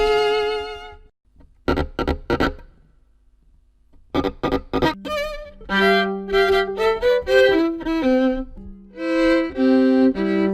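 Solo violin. It holds a note with vibrato, then plays several short, sharp strokes, stops for about a second, and plays more short strokes before moving into a run of held notes that step up and down in pitch.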